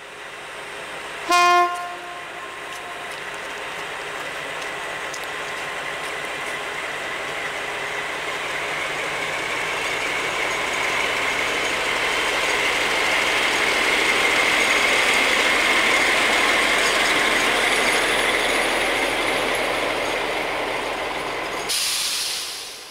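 SU45 diesel locomotive sounding one short horn blast, then its engine and the train's wheels swelling as it passes close by, hauling three carriages. The noise peaks mid-pass and eases off, with a brief rush of hiss and a fade near the end.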